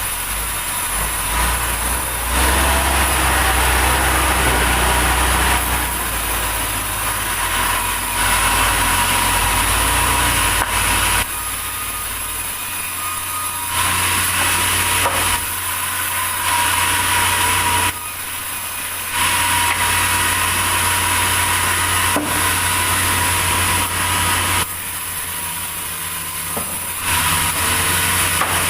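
Sawmill saw cutting a large durian log, with an engine running beneath it. The sound is loud and steady, switching abruptly between louder and quieter stretches every few seconds.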